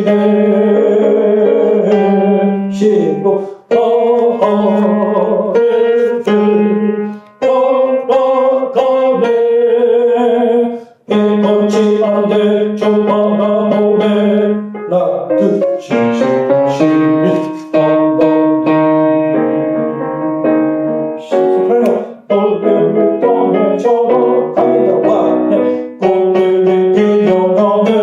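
Keyboard, electric-piano sound, playing a choral hymn arrangement in sustained chords that change every second or two, with brief breaks between phrases.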